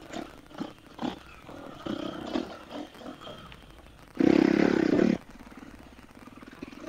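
Dirt-bike engines running at low speed with scattered pops, then a loud burst lasting about a second, about four seconds in, before dropping back to a low rumble.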